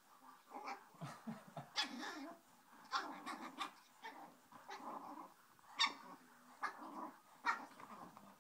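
A small puppy's play growls and yaps in short, irregular bursts as she attacks a rubber chew toy, with a few sharp knocks mixed in.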